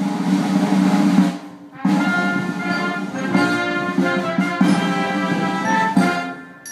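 Background music with changing pitched notes and a beat, dropping out briefly about a second and a half in.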